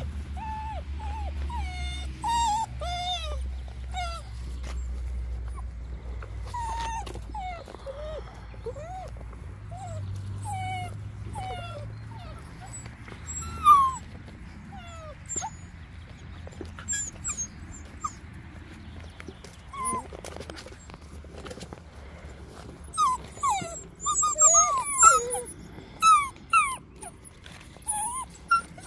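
Seven-week-old puppies whimpering and yipping in many short, high cries that bend up and down, with one sharp knock about halfway through. The cries come thicker and louder over the last few seconds.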